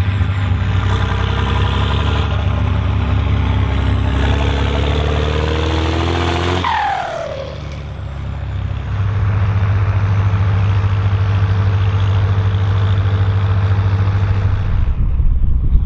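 Volvo BM814 tractor engine working under load pulling a six-furrow plough. Its pitch climbs for several seconds, then about halfway through it drops off suddenly with a falling whine and goes quieter for a moment before it settles back into steady hard running.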